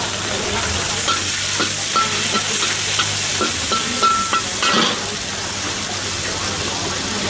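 Chicken sizzling in hot oil in a wok while a metal spatula stirs it, scraping and clinking against the wok. The scrapes come several times between about one and five seconds in, some ringing briefly with a high tone, over a steady sizzle.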